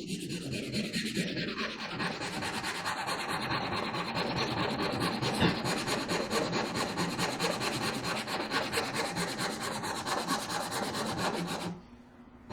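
Hand saw cutting the pins of a dovetail joint in walnut, a steady rasping of the teeth through the wood that stops about a second before the end.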